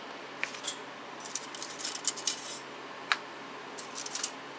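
Plastic cutlery rattling and clicking against a stainless-steel holder cup as a hand picks through it, in two bursts of small clatter with a couple of brief metallic pings.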